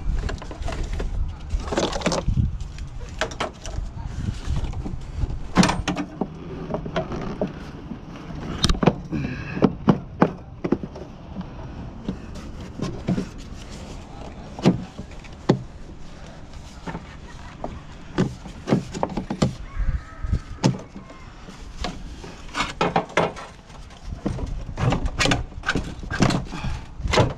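Hands pulling and shifting the plastic cooling-fan shroud and hoses in a van's engine bay: irregular clicks, knocks and creaking scrapes of hard plastic parts.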